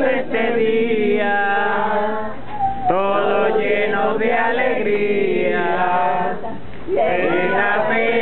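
A group of family voices, adults and children, singing a birthday song together in phrases with short breaks.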